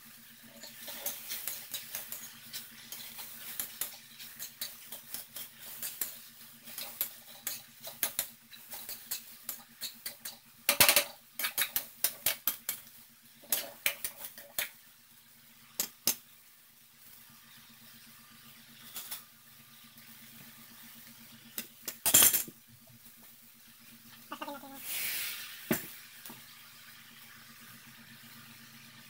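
A metal spoon scraping and clanking against a metal wok as sautéed cabbage with egg is stirred, busy and rapid for about the first half, then only now and then. There is one loud clang about 22 seconds in.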